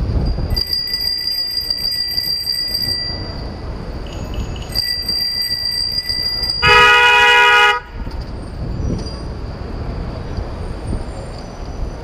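Loud Bicycle Horn, a car-style horn mounted on the bicycle, sounding one loud blast of about a second, some seven seconds in, over wind and traffic noise. Before it, a thin high steady whine sounds twice.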